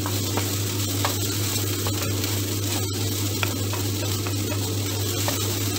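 Diced onions sizzling in a tablespoon of oil in a non-stick frying pan, with a few faint clicks, over a steady low hum.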